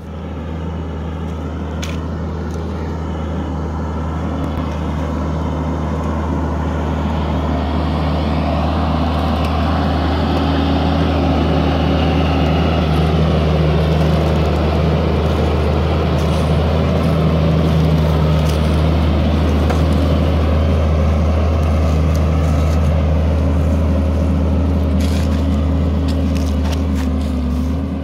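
Case IH MXM140 Pro tractor's diesel engine working hard under load as it pulls a plough through the soil, a steady low drone that grows louder over the first several seconds as it comes near and then holds steady.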